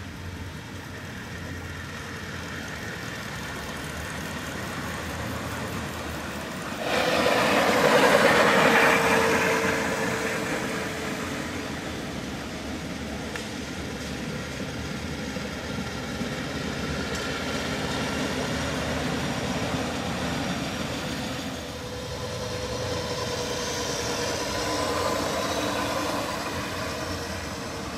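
Park railway train running, suddenly louder about seven seconds in, with a tone that slides slowly down as it fades, then swelling again near the end.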